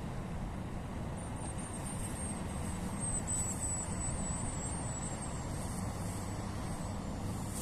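Inland motor tanker barge passing under way: a steady, low, even rumble from its diesel engine and hull through the water. A faint high chirping runs through the middle.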